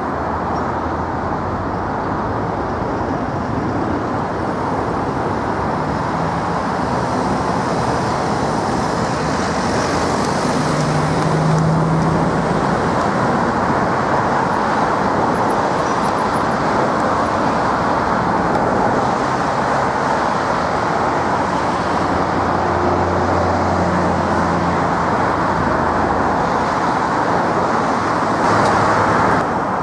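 Steady roar of a departing British Airways Boeing 747-400's four jet engines as it climbs out, with a faint high whine sliding in pitch a few seconds in.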